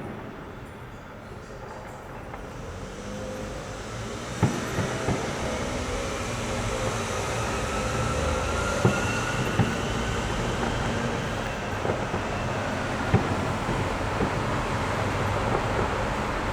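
Fireworks going off: a thickening wash of crackle that grows louder a few seconds in, with several sharp bangs and faint whistles gliding in pitch.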